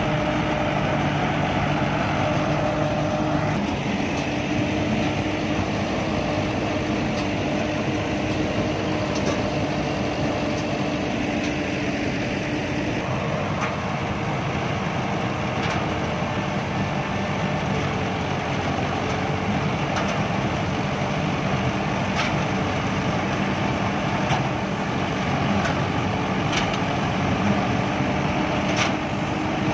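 Mahindra combine harvester running steadily while it cuts rice: a continuous engine and machinery drone, with occasional short sharp ticks.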